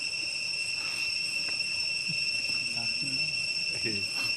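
Steady high-pitched drone of insects, one unbroken whine with overtones, with faint murmured voices underneath.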